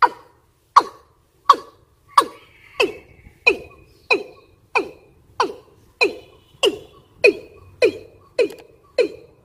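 Female watercock (ayam-ayaman) lure call, a long run of short notes repeated about one and a half times a second, each sliding down in pitch, quickening slightly. It is the call of a female in breeding condition, used to draw in males.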